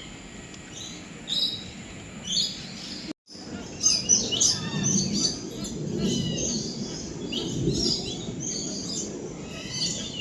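Many birds chirping and calling over one another in short, repeated notes. The sound cuts out completely for a split second about three seconds in, then comes back busier and louder.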